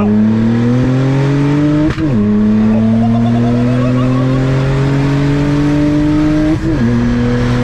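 A Saab 9-3 Aero's turbocharged 2.8 V6 pulls hard at full throttle, its engine note climbing steadily. It makes two upshifts, about two seconds in and again near the end, and the pitch drops at each one.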